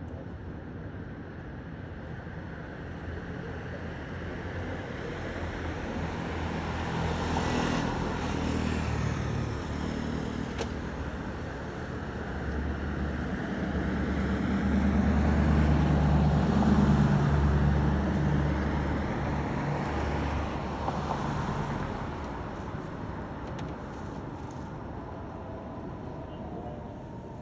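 Road traffic on a city street: motor vehicles passing, with the engine sound swelling twice as vehicles go by, the louder one about halfway through, then fading.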